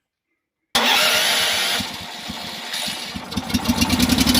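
Karakat engine starting with the carburettor enricher pulled: a sudden loud noisy burst about a second in, then the engine catches and runs with a rapid, even pulse toward the end.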